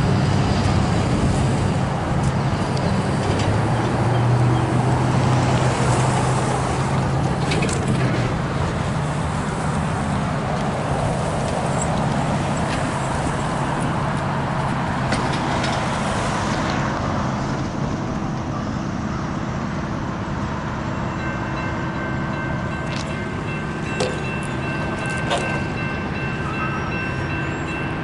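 Road traffic going by, car engines and tyre noise loudest in the first several seconds and easing off after. Faint steady high tones join in near the end.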